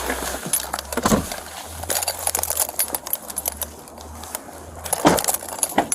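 Small metal objects jingling and clinking with rattles and a few louder knocks, the busiest stretch about two seconds in, over a steady low hum.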